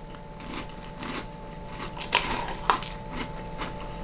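A mouthful of Honey Nut Cheerios in almond milk being chewed, with crunches about twice a second and two sharper crunches a little past the middle.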